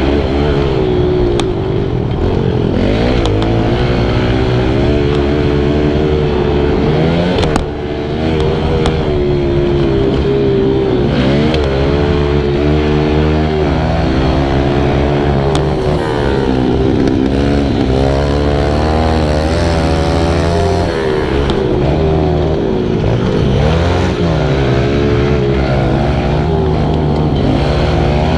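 Kawasaki KLX110's small single-cylinder four-stroke engine revving up through the gears and easing off again and again while ridden hard on a dirt track, its pitch climbing and falling every few seconds. A single sharp knock comes about a third of the way in.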